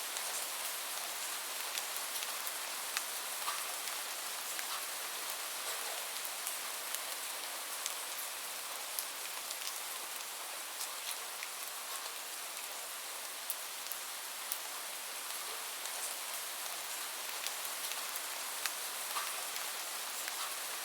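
Light rain falling steadily, a soft even hiss with scattered individual drops ticking on hard surfaces.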